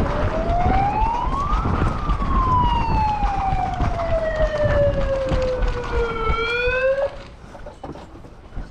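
A siren winds up in pitch for about two seconds, then slides slowly back down, climbs briefly once more and cuts off abruptly near the end. A steady rumble of wind on the microphone lies under it.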